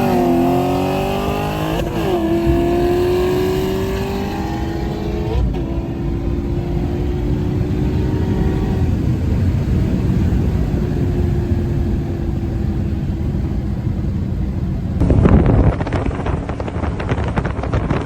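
Car engine running under load, its pitch swelling and dropping sharply about three times in the first six seconds, then holding steadier. About 15 seconds in, a loud rumble of wind and road noise comes in suddenly.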